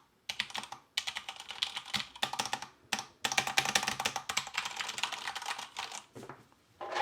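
Fast typing on a DURGOD Fusion mechanical keyboard with Cherry MX Speed Silver linear switches: dense runs of key clacks, broken by three short pauses.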